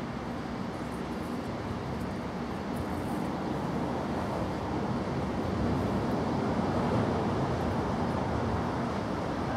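Steady low rumble of distant road traffic, growing a little louder around the middle.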